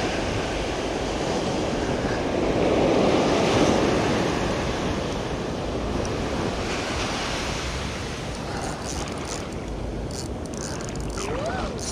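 Ocean surf washing against a rocky shore, with wind buffeting the microphone; one wave surges loudest about three seconds in.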